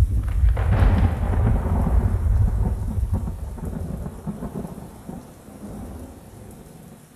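Rain with a long roll of thunder: a sharper crack about half a second in, then deep rumbling that slowly dies away.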